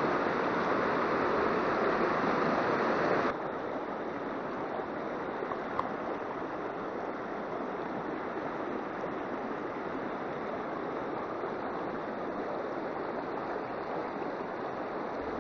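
Rushing water of a fast, clear mountain stream. At first a waterfall splashes onto rocks beside the stream. About three seconds in, the level drops suddenly to the steadier, quieter rush of shallow rapids running over stones.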